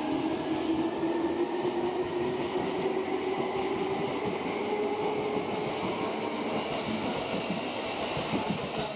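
A Seibu New 2000 series electric commuter train pulling out of the station and accelerating past. Its traction-motor whine climbs steadily in pitch over the rumble of the cars, and a few wheel clicks on the rails come near the end.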